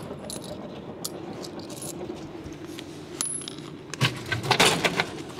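Frozen-food vending machine running through a vend: a steady mechanical hum, then about four seconds in a cluster of loud clunks and clatter as the heavy packet of keema curry drops into the delivery tray.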